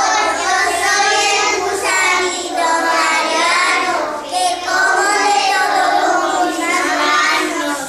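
A group of young children, four-year-olds, singing a song together.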